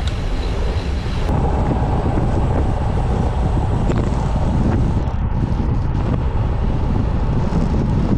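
Steady wind rumble buffeting the microphone of a camera mounted on a road bike ridden at speed. The noise changes character slightly about a second in.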